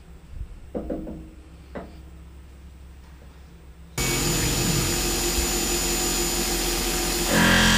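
A few light metal clunks as an aluminium disc is set into the mill's vise jaws, then from about four seconds in a Tormach PCNC 1100 CNC mill running: a steady loud rushing noise with a whine, which steps up louder and higher just before the end.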